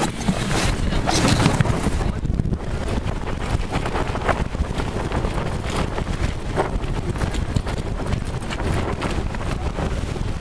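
Heavy wind buffeting the microphone over water rushing and splashing along the hull of a heeled C&C 39 sailboat under sail.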